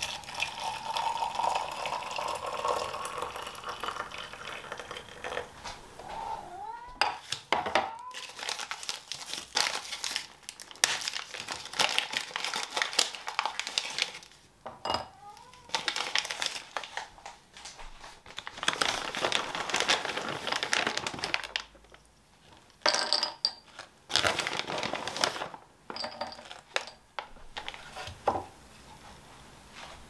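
Hot water poured from a glass electric kettle into a glass cup for the first five seconds or so. After that, a chocolate bar's wrapper crinkles and tears in repeated bursts, with a few light clinks of dishes.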